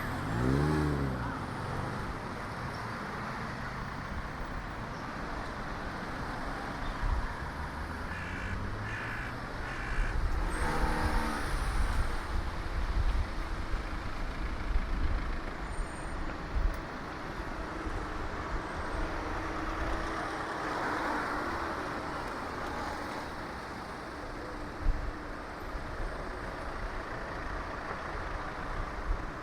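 Road traffic heard from a bicycle on a city street: motor vehicles passing over a steady rush of tyre and wind noise. A vehicle passes close about a second in, its engine note falling as it goes by.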